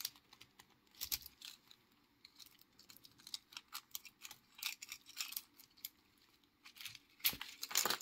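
Plastic bubble wrap crinkling and crackling in the hands as it is peeled open, in irregular clusters of sharp crackles.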